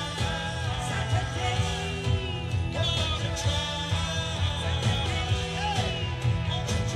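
Rock band playing live with a lead vocal singing over a heavy bass and drum beat.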